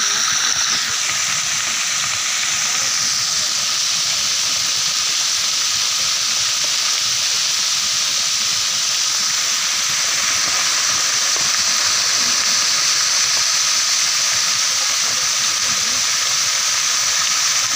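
Loose dry soil and gravel of a landslide streaming steadily down a steep slope: a continuous loud hiss without breaks.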